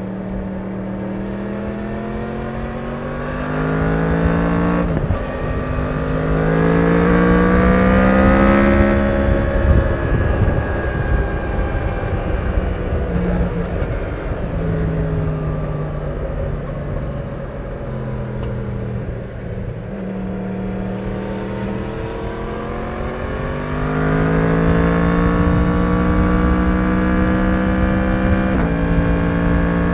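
Yamaha MT-10's crossplane inline-four engine on its stock exhaust, picked up by a recorder in the rider's backpack. It accelerates with the pitch rising and drops sharply at an upshift about five seconds in, pulls on, then eases off and falls through the middle. Near the end it pulls hard again and upshifts once more.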